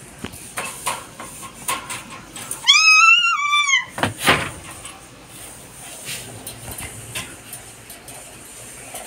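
A puppy whining: one high, drawn-out whine of about a second, a few seconds in, with a shorter yelp just after. Light clicks and rattles from the wire cage run underneath.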